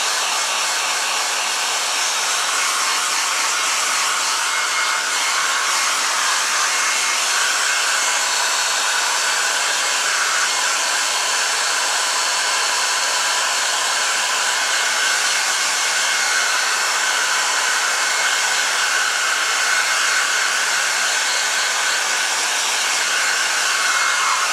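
Small handheld hair dryer blowing steadily on the damp fur of a squirrel mount, drying and fluffing the hair. An even, unbroken whoosh that holds the same level throughout.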